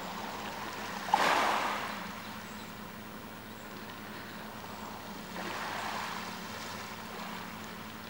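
Small waves washing in over a pebble shore: a sudden louder surge about a second in that dies away within a second, and a softer one about five and a half seconds in, over a steady low hum.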